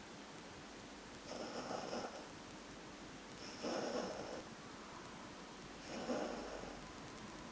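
Whippet puppy snoring in her sleep: three snores, a little over two seconds apart.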